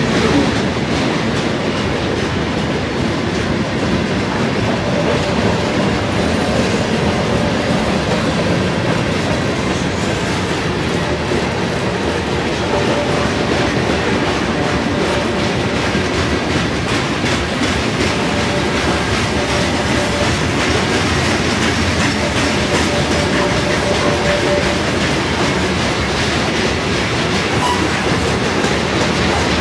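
Freight cars of a mixed freight train rolling past, their wheels clicking over the rail joints in a steady clickety-clack. A faint thin whine comes and goes.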